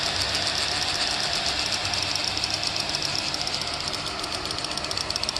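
Qianji relay chattering, clicking on and off rapidly in a fast, even rattle, as the board's heated-bed MOSFET pulses it to hold the 3D printer bed at its set temperature. The clicks grow sharper in the second half, over a steady hiss.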